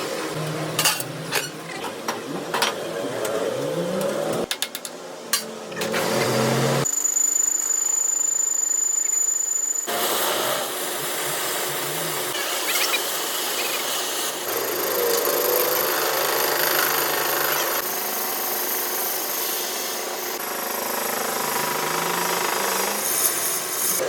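Workshop power tools and machining at work on a crankshaft, heard in several abrupt cut-together shots: sharp clicks and knocks in the first few seconds, a steady high whine over a quieter stretch in the middle, then continuous grinding-like machine noise.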